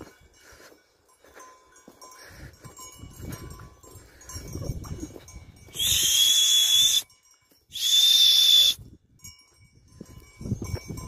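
Two loud, shrill whistle blasts, each about a second long with a short gap between them, a little past the middle; before them only faint low movement sounds.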